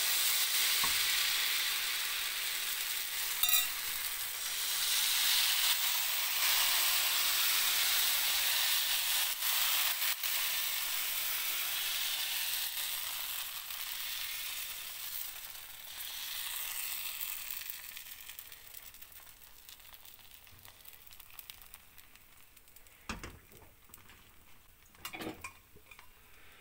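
Ragi (finger millet) appam batter sizzling in a hot non-stick appam pan on a gas burner as it is poured in and swirled around the pan. The sizzle fades through the second half as the appam sets. A few light knocks come near the end.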